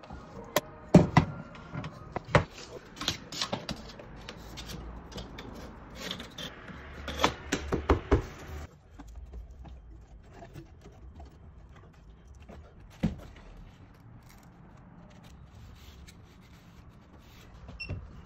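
Scattered sharp clicks and knocks of hand tools and fittings being handled on a window frame, dense in the first eight seconds, then quieter, with one more knock about thirteen seconds in.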